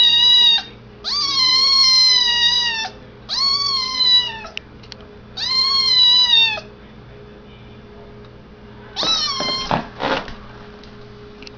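Kitten meowing for food, begging for chicken. A string of long, high meows, each a second or two long, then a pause and two shorter cries about nine seconds in.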